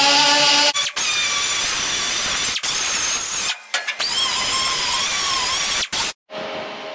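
Electric grinder running against sheet-metal welds, its motor whine wavering in pitch under load. The sound breaks off abruptly several times and stops about six seconds in.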